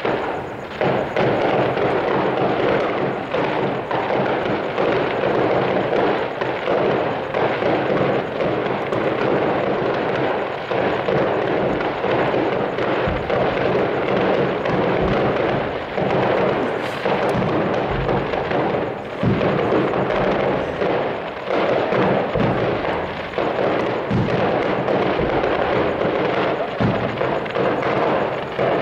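Aerial fireworks display going off in a continuous barrage of bangs and crackle, the bursts following one another closely without a break.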